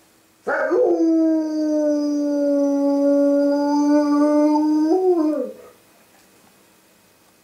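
Dog howling: one long howl that slides quickly down from a high start and then holds a steady pitch for about four seconds, lifting briefly and falling away near the end.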